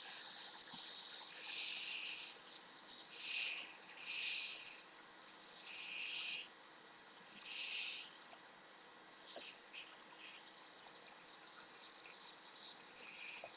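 Hot air hissing from the nozzle of a Hakko FR810B hot air rework station, swelling and fading in waves every second or two.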